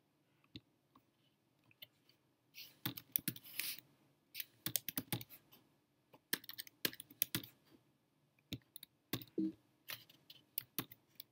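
Typing on a computer keyboard: quick runs of key clicks in several short bursts, with pauses between them.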